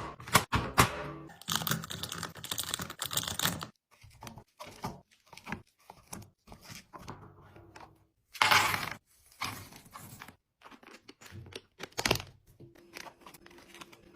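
Food packaging and containers being handled during restocking: irregular crinkling and tearing of plastic wrappers, with clicks and knocks of items being set down and a loud rustle about eight and a half seconds in.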